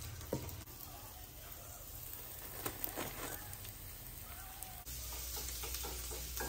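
Hot oil sizzling as a sticky-rice cake (xôi chiên phồng) deep-fries in a pan, with a few light clicks of chopsticks. About five seconds in the sound changes to oil sizzling in a wok with minced garlic, over a steady low hum.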